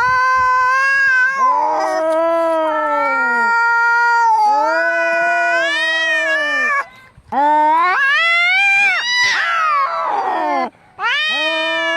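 Domestic cats caterwauling in a fight: loud, drawn-out yowls that rise and fall in pitch, each lasting a few seconds, at times two voices overlapping. A harsher, rougher yowl comes a little past the middle, with brief breaks about seven and eleven seconds in.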